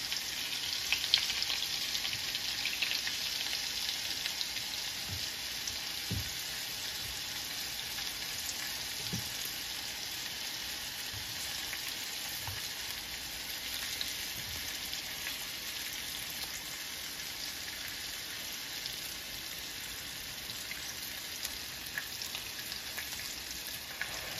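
Floured chicken breast shallow-frying in oil and butter in a skillet: a steady sizzle, a little louder in the first few seconds, with a few soft knocks.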